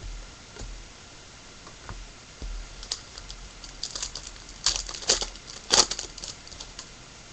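Trading card pack and cards being handled: a few light clicks and bumps, then a run of sharp crackling and rustling from about three seconds in, loudest near the end, as a foil card pack wrapper is crinkled and cards are shuffled.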